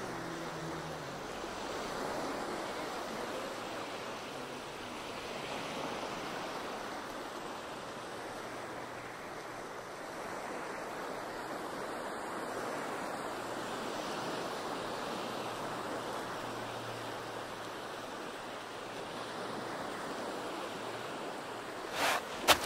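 Ocean surf washing on a beach, a steady hiss that gently swells and eases. Near the end, three sharp knocks close together, louder than the surf.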